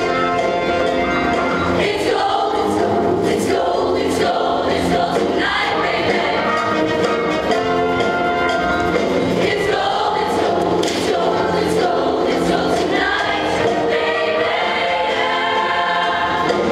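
Show choir singing in harmony over a live band accompaniment.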